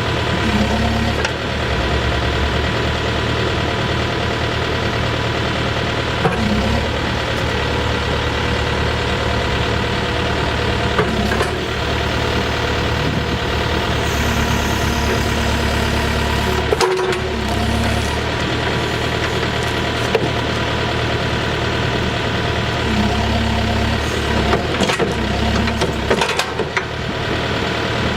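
Case 580N backhoe loader's diesel engine running steadily, with a few sharp clanks or knocks and brief tones coming and going over it.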